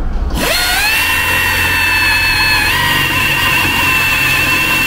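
Pneumatic (air) drill spinning up about half a second in, then running as a steady high whine while it drills into the steel body panel of a Toyota HiAce. Its pitch shifts slightly partway through.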